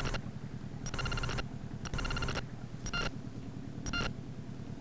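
A high-pitched beep repeating about once a second, the second and third beeps longer and pulsing, over a steady low rumble.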